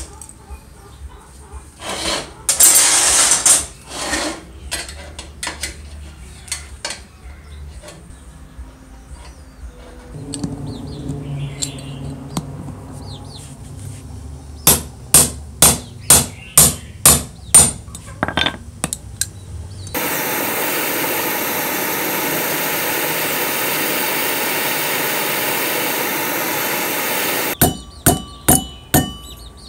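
Hammer blows on a small steel rod against an anvil: a run of about eight evenly spaced strikes, then later a quicker run of about five. Between the two runs comes a steady hissing noise lasting several seconds.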